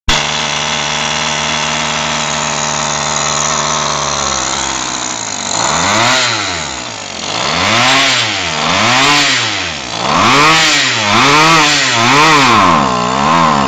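Kawasaki 22.6 cc two-stroke petrol model-boat engine running on a newly made carburettor on its first test run. It runs steadily for about five seconds, then is revved up and back down about once a second, its pitch rising and falling with each blip of the throttle.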